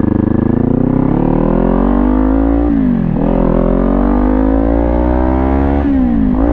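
Kawasaki Ninja 400's parallel-twin engine through a Leo Vince GP Corsa aftermarket exhaust, accelerating through the gears: the engine note climbs steadily, drops sharply at an upshift about three seconds in, climbs again, and drops at another upshift near the end.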